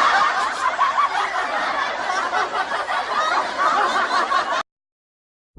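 Canned laughter: a crowd of many voices laughing together, cutting off suddenly near the end.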